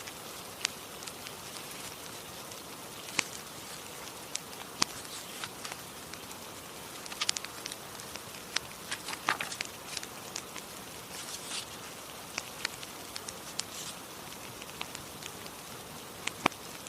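Fireplace crackling: a steady hiss with irregular sharp pops and crackles, a few in quick clusters.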